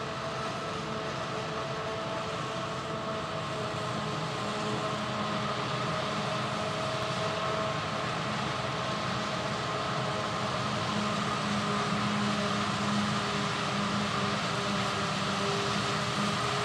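Claas Jaguar 820 self-propelled forage harvester chopping maize: a steady machine drone with a few steady high tones over it, growing slowly louder.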